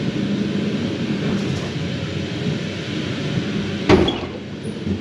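Ghost train car rumbling along its track, with a single loud bang about four seconds in.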